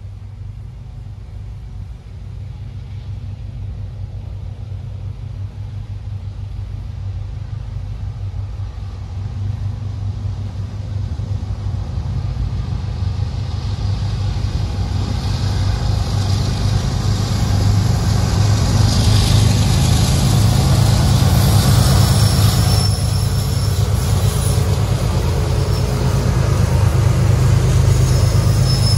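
GE diesel freight locomotives approaching on a CSX line, their engine rumble growing steadily louder. Wheel and rail noise builds in over the second half.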